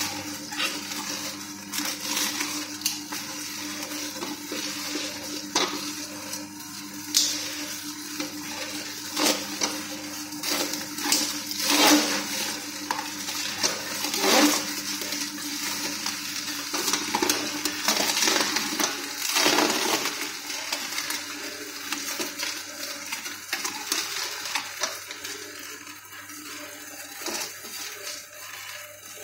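Vertical slow (masticating) juicer running: a steady motor hum under irregular cracking and crunching as the auger crushes fruit and vegetables. The loudest cracks come around the middle, and the hum fades in the second half.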